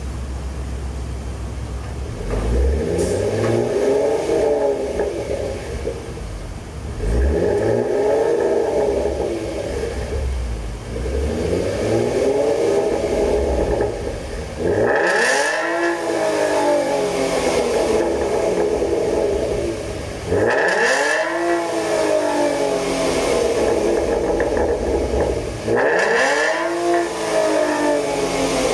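Ford Mustang 3.7 L V6 through a Thunder SC-type dual-tip aftermarket muffler, idling and then revved six times in free rev; the last three revs climb higher and drop back to idle more sharply.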